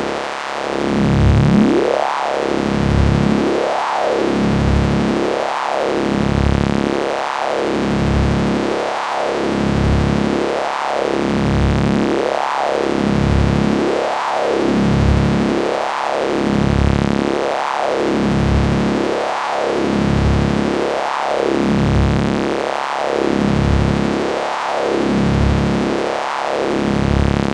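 Synthesized science-fiction electricity effect: a steady electric hum and hiss, with a tone that sweeps up and back down in pitch again and again, a little under every two seconds.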